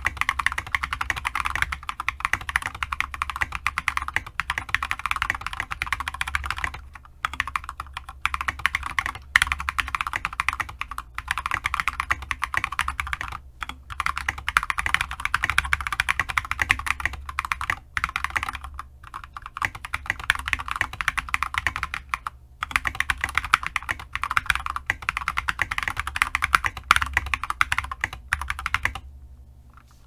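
Fast touch-typing on a full-size GMMK mechanical keyboard fitted with lubed Glorious Panda tactile switches and ABS SA-profile keycaps: a dense run of keystroke clacks, broken by short pauses every few seconds and a longer one near the end.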